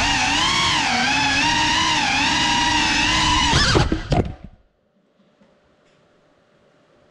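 Small FPV drone's motors and propellers whining, the pitch rising and falling with the throttle. About four seconds in, the pitch jumps a few times and the whine cuts off as the drone crashes and comes to rest upside down, leaving near silence.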